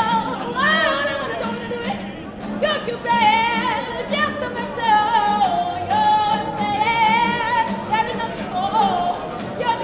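A woman singing in a strong voice, with long held notes that waver, over an acoustic guitar.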